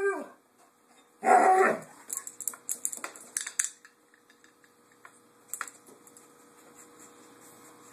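A dog gives a short falling whine at the start, then one loud bark about a second in, followed by a couple of seconds of light scratchy clicks as its claws paw at a tile floor.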